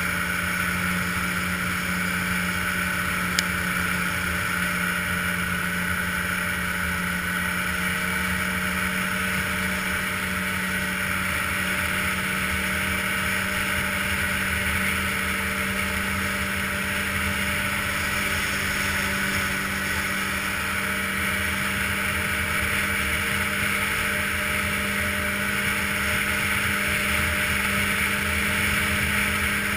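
Ski-Doo touring snowmobile's engine running at a steady cruising speed, its pitch holding level. A single short click sounds about three seconds in.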